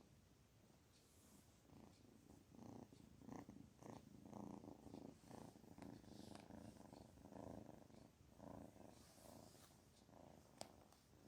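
Kitten purring, a soft rhythmic purr that swells and fades about twice a second as it breathes in and out, starting about a second and a half in. A sharp click near the end.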